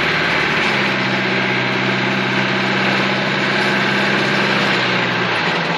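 Engine of an old jeep-style vehicle running as it is driven, heard from inside the open-windowed cab. The engine note steps up about half a second in, holds steady, and drops near the end, over a steady rush of wind and road noise.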